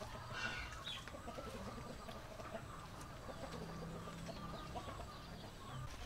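Chickens clucking, faint, with a few short calls in the first second.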